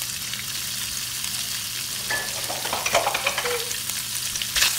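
Sliced turkey sausages sizzling steadily in hot oil in a stainless steel pan, with a few light clicks and one sharper tap near the end.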